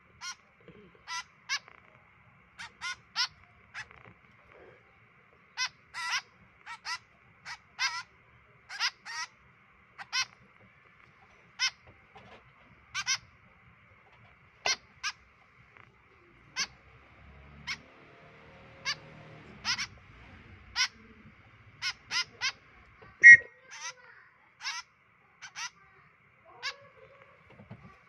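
White-breasted woodswallow fledglings giving short, sharp begging calls over and over, about one or two a second at uneven spacing, as they are hand-fed.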